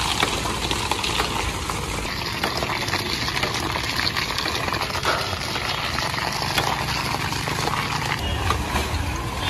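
Steady, busy street noise with many small clicks and knocks scattered through it.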